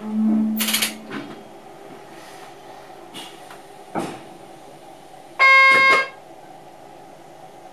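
Cab sounds of an NS mat'64 electric train under way. There is a short hiss with a low hum near the start and a knock about four seconds in. About five and a half seconds in comes the loudest sound: a steady, high signal tone lasting about half a second.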